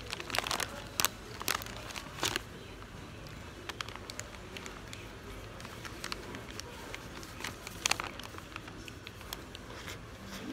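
Brown paper wrapper crinkling and crackling as a large paper-wrapped rice ball is handled, in sharp scattered crackles, most in the first couple of seconds and again about eight seconds in.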